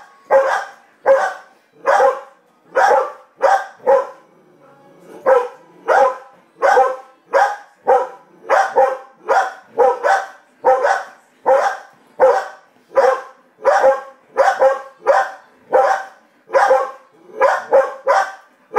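A dog barking over and over in a steady rhythm, about one and a half barks a second, with a short break about four seconds in.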